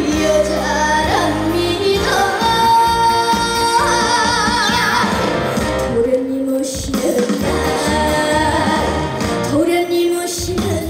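A girl sings a Korean song over backing music. She holds long notes with a wide vibrato, and the music briefly thins out about six seconds in and again near the end.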